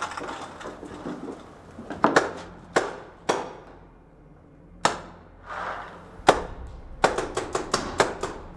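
Paintball markers firing: single sharp pops spread over several seconds, then a quick string of about seven shots near the end.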